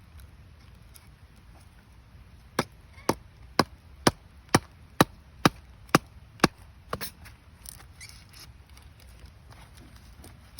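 Firewood being chopped: about nine sharp, evenly spaced strikes, roughly two a second, ending with a weaker one.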